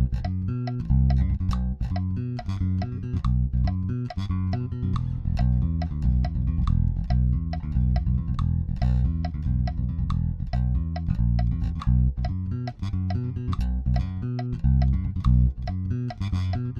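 Jazz-style electric bass guitar played fingerstyle: a fast, busy bassline at about 140 bpm, an unbroken stream of plucked notes with sharp attacks and right-hand raking across the strings.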